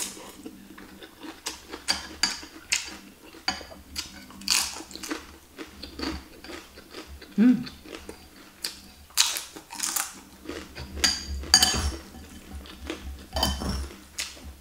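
Close-up eating sounds: chewing and crunching fried wonton and noodles, with the short clicks of a metal fork and spoon against a glass bowl, a few louder bites and clinks scattered through.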